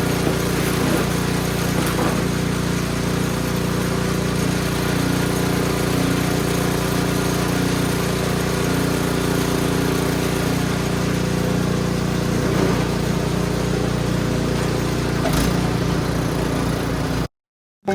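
Husqvarna gas snow blower engine running steadily. The sound cuts off abruptly near the end.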